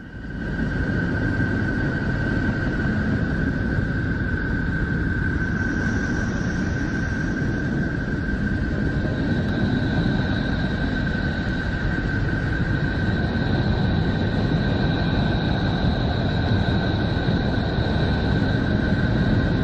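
A space 'planet sound' of the kind NASA makes from spacecraft data: a steady deep rumbling drone with a steady high tone over it. A second, higher tone comes in about ten seconds in.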